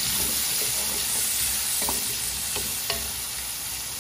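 Sliced onions and garlic sizzling in hot oil in an aluminium pot while a wooden spoon stirs them, with a few light knocks of the spoon against the pot in the second half.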